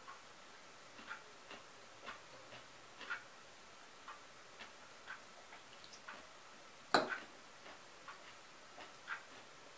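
Clock ticking steadily, about twice a second. About seven seconds in there is one louder, sharper clink of a metal fork against a ceramic salad bowl.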